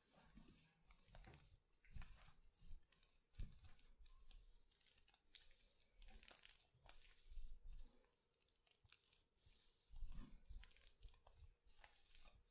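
Faint, irregular rustling and crinkling with scattered soft clicks and a few dull thumps: hands rubbing and working during a head and body massage.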